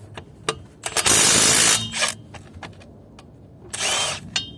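Milwaukee M12 FIWF12 stubby cordless impact wrench hammering on a car's lug bolt to break it loose. There is a loud burst of under a second about a second in, then a shorter burst near the end, with a few clicks and knocks of the socket and bolt in between.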